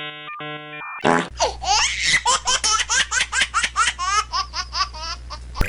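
A brief electronic tone sounds twice, then a long run of rapid, high-pitched laughter starts about a second in and carries on until just before the end, over a steady low hum.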